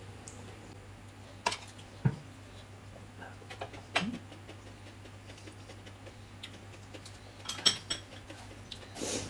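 Metal spoons clinking against plates and glass bowls at a meal: a handful of scattered sharp clinks, the loudest a little over two-thirds of the way through, over a faint low steady hum.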